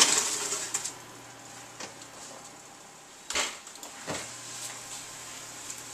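An oven door and its rack being handled: a few scattered knocks and clunks, the loudest about three and a half seconds in.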